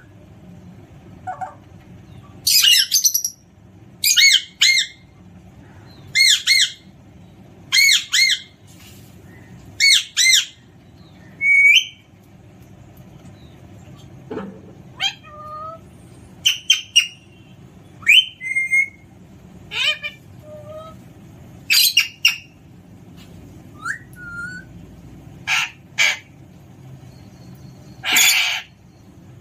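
Alexandrine parrot squawking: a long run of loud, harsh calls every second or two, many of them in quick pairs, with a few short whistled notes in between.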